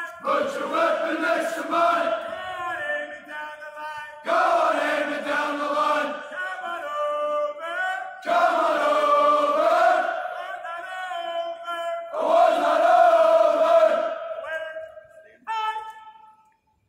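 A flight of US Air Force trainees chanting a military marching cadence as they march. Loud group lines come in about every four seconds, with quieter lines between, and the chant fades near the end.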